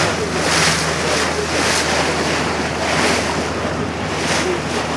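Small motor boat under way: a steady low engine hum beneath water rushing and splashing along the hull, with the splash swelling about once a second, and wind buffeting the microphone.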